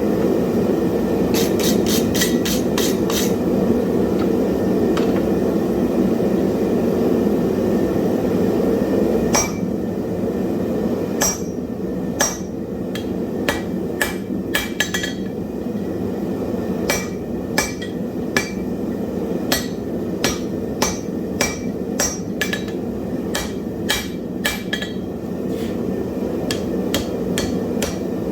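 Hand hammer blows on hot wrought iron: a quick run of about six ringing strikes early on, then, after a pause, blows that settle into a steady beat of roughly one or two a second. A steady low roar runs underneath and drops somewhat about a third of the way in.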